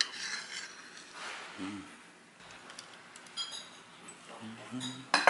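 Metal chopsticks clicking and clinking against ceramic dishes: a few light taps, a short ringing clink a little after three seconds in, and a sharp clack near the end, which is the loudest.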